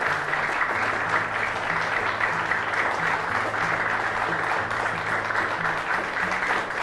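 Audience applauding steadily, with low sustained music notes underneath that step from one pitch to another.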